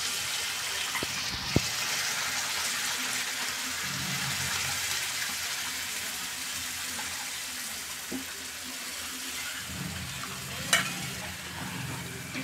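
Hot oil tempering with garlic and spices sizzling steadily as cooked dal is poured and stirred into it in a kadhai, with a few sharp knocks of the utensils against the pan.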